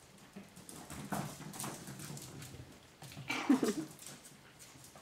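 Chihuahua puppies playing on a tile floor, their claws clicking and pattering on the tiles. A short puppy cry comes about three and a half seconds in.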